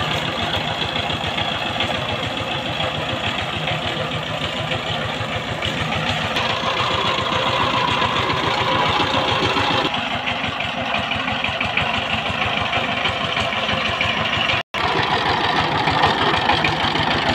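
Single-cylinder diesel engine of a two-wheel power tiller running steadily with a fast, even chug as the tiller is driven. There is a split-second cut-out about three-quarters of the way through.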